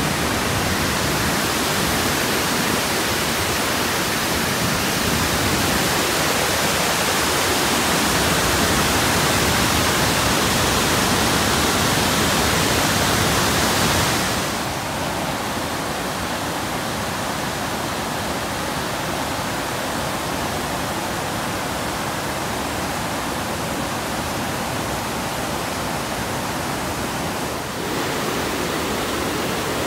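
Montmorency Falls pouring in full flow: a steady rush of water noise, stepping a little quieter about halfway through.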